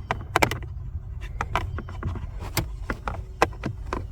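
Plastic cabin air filter cover and housing being handled and pressed into place, making scattered clicks and knocks over a steady low hum.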